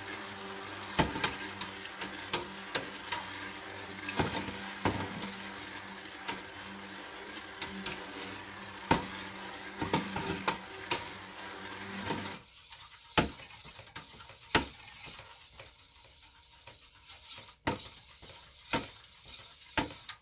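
Stick blender motor humming steadily in a pot of cold process soap batter, emulsifying the oils and lye, with sharp clicks as the blender head knocks the pot. The motor cuts off about twelve seconds in, leaving scattered taps and scrapes of the blender and utensils against the pot.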